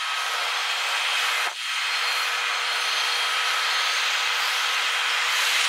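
Jet engines of a JAL-group Boeing 737-800 at takeoff power on the takeoff roll, played back at four times speed, so the roar comes out as a steady high rushing hiss with thin whine tones. The sound drops briefly about one and a half seconds in.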